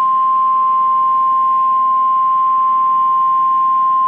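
NOAA Weather Radio warning alarm tone: a single loud, steady 1050 Hz tone, held without a break. It is the alert that an urgent warning, here a tornado warning, is about to be read.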